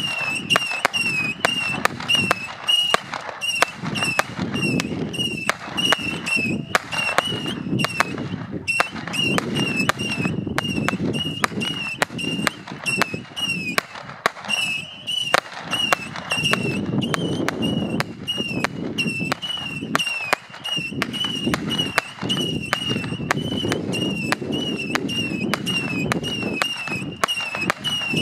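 Fireworks going off in quick succession: sharp bangs and cracks about two a second over a steady high-pitched whistle.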